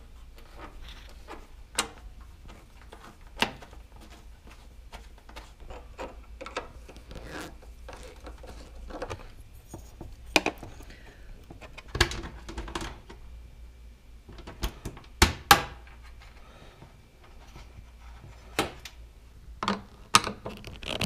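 Scattered clicks, taps and knocks of hand work on a car's radiator support: a carbon-fibre cooling plate being fitted into place and its bolts turned with a hand tool. A few sharper knocks stand out, the loudest in the second half.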